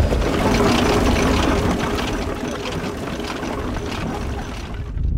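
Heavy coal-mining machinery running at a mechanized coalface: a dense, steady mechanical noise with many small clatters, which cuts off suddenly just before the end.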